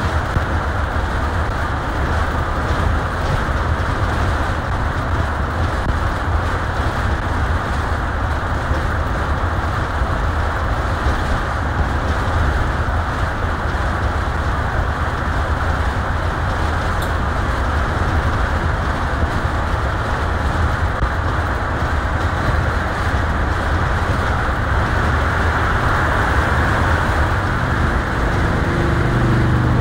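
Steady tyre and road noise with a low rumble, heard inside a vehicle's cabin cruising at highway speed on concrete pavement.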